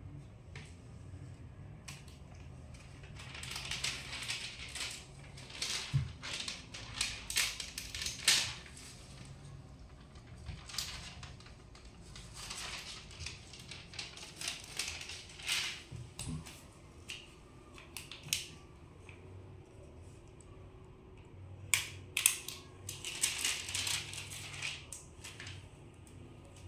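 Crinkly crackling handling noise in irregular bunches, with a couple of light knocks.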